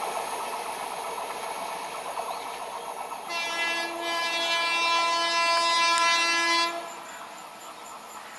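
Running noise of a passenger train on the rails. About three seconds in, an approaching WAP-7 electric locomotive sounds one long horn blast of about three and a half seconds, which cuts off sharply.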